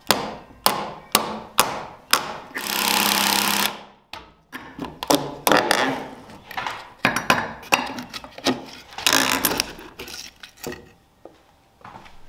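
Hammer blows on timber in quick runs of about two a second, broken by two short stretches of steadier noise.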